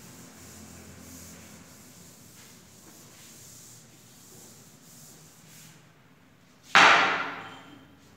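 Chalkboard duster rubbing across a chalkboard in repeated scrubbing strokes, erasing chalk writing. About seven seconds in comes a sudden loud thump, the loudest sound, dying away within about a second.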